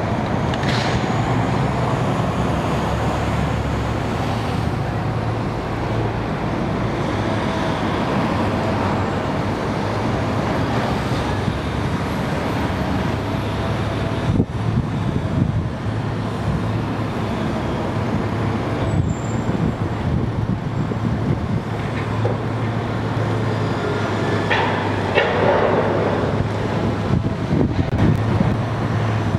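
Steady low diesel drone of a demolition excavator mixed with city street traffic, with a few knocks from the machine working on the building.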